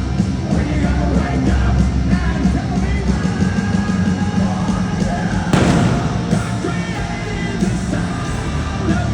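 Live hard rock band playing at full volume: heavy guitars, bass and drums, with a loud crash about five and a half seconds in.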